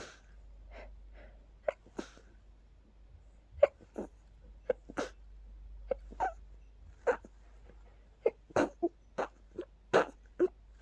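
A person sneezing over and over in quick succession, fifteen or so short, sharp sneezes: an allergic sneezing fit set off by pollen.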